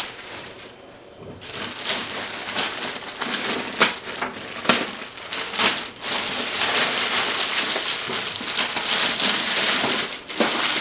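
Plastic packaging crinkling and rustling as a new printer is unwrapped, with a couple of sharp crackles. It starts about a second and a half in.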